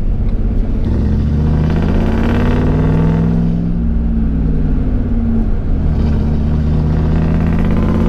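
Ford F-150 pickup's engine and road noise heard from inside the cab as it accelerates away. The engine pitch rises, drops back once a few seconds in as the transmission upshifts, then rises again.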